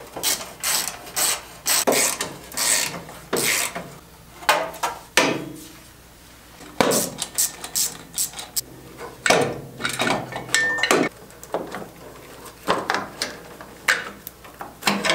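Hand wrenches working on a Yanmar mini tractor engine as its stop solenoid is unbolted: irregular clicks, clinks and scraping of steel tools on metal, with ratchet-like clicking.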